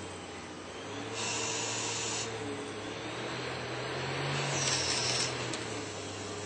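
Haas TL-15 CNC lathe turning a metal bar: a steady spindle hum under a hissing cutting noise as the tool works the part, with louder stretches of high hiss about a second in and again near five seconds.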